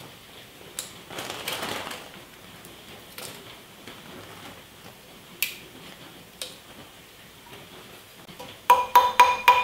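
Small metal clinks and a brief rattle of bolts and tools on a steel planetary axle hub. Near the end come about five quick, ringing metal-on-metal hammer taps on the hub.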